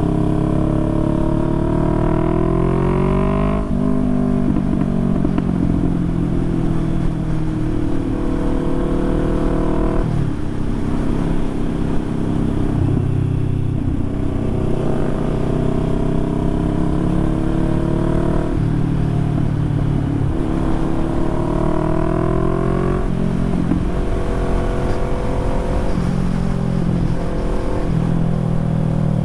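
Motorcycle engine pulling hard under acceleration. Its note climbs in pitch and drops suddenly at each upshift, four times over.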